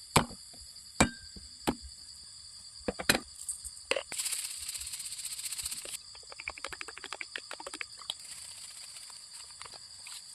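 A knife chopping on a cutting board: a few separate sharp chops, then a couple of seconds of rapid chopping, then quicker, lighter taps. A steady high-pitched hum, like insects, runs underneath.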